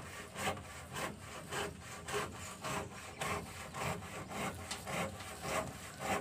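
Rhythmic rasping strokes, about two a second, evenly repeated.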